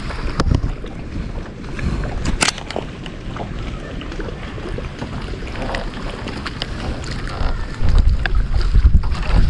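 Wind buffeting the microphone over water lapping against a small boat, with scattered small knocks and one sharp click about two and a half seconds in. A strong low wind rumble swells near the end.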